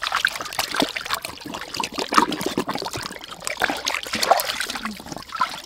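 Water splashing and sloshing in a stainless steel basin as hands rub and turn whole raw chickens to wash them, a run of irregular wet splashes.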